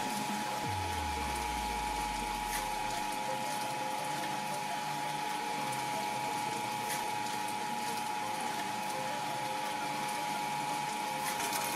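Twin-shaft shredder's electric motor and gearbox running with a steady whine as the blades slowly crush and pull in watermelon slices, with a few faint clicks. A low hum falls away in the first few seconds.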